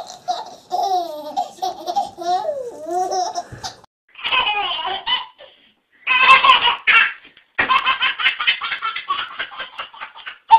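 Baby laughing hard: squealing, pitch-sliding laughter first, then repeated bouts of rapid belly laughter broken by short silences about four, five and a half, and seven seconds in.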